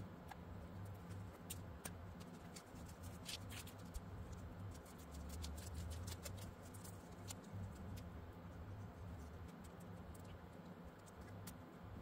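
Faint handling noise of hands working the end of an armored fiber optic cable: scattered small clicks and ticks over a low steady hum.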